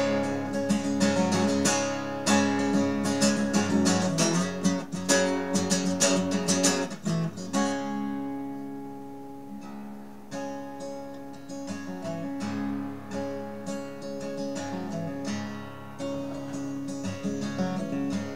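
Acoustic guitar strummed alone in an instrumental break of a song, with no voice. The strumming is dense and fuller at first, lighter and quieter from about eight seconds in, then picks up a little again.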